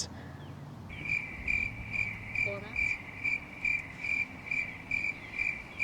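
Cricket chirping sound effect, the comic 'awkward silence' cue: a steady high chirp pulsing about twice a second, starting about a second in and cutting off cleanly.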